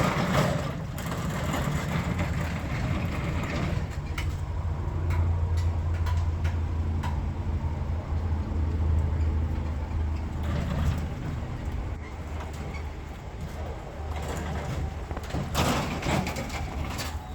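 Vehicle engine running steadily with a low hum, with a few scattered knocks and clanks over it.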